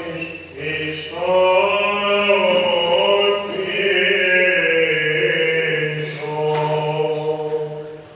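Byzantine church chant: a male chanter sings a long, drawn-out melodic line over a steady low held note. The phrase tails off near the end.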